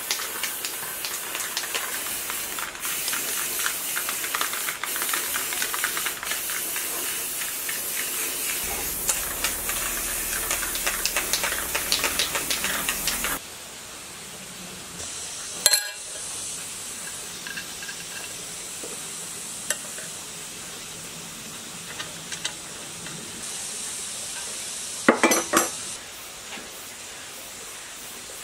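Aerosol spray-paint can hissing in bursts, with rattles and clicks, until it cuts off sharply about halfway through. After that a quieter steady background holds, broken by one sharp knock and a few light metal clinks near the end.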